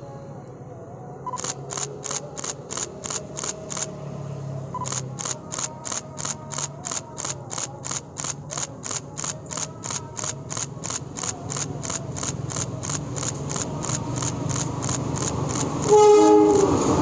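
A warning bell ringing in rapid strokes, about three a second, with a short break about four seconds in, over the low rumble of an approaching diesel locomotive that grows louder; about a second before the end the locomotive sounds its horn, the loudest sound.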